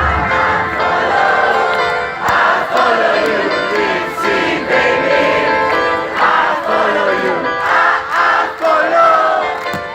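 Large concert crowd singing the melody together loudly, many voices at once, while the band's bass drops out and only light backing remains.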